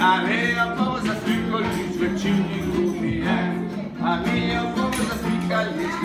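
A class of children singing a song together with instrumental accompaniment.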